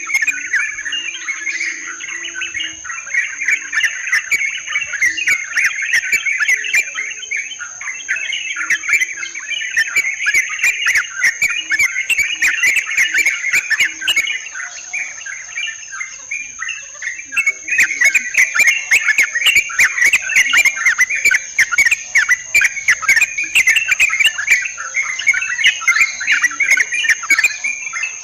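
Yellow-vented bulbuls (trucukan) chattering in a dense, continuous stream of bubbly calls, used as a lure recording. A steady high-pitched insect buzz runs underneath, and many sharp crackling clicks thicken in the second half.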